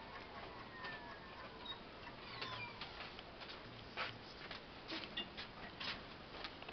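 Nine Continent electric-bike hub motor whining, its several tones falling in pitch over about three seconds as the wheel spins down. Scattered clicks and taps follow.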